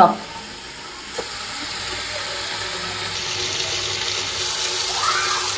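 Whole spices, onion and curry leaves sizzling in hot oil in a large aluminium pot as the base for pulao is tempered. A steady hiss that grows louder from about a second in.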